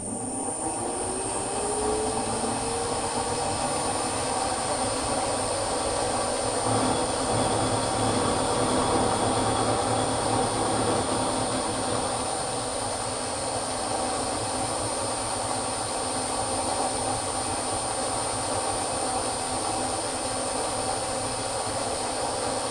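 Milling machine spindle starting up with a rising whine over the first few seconds, then running steadily with a constant high whine as the end mill makes a slow plunge cut into the chuck body held in the vise.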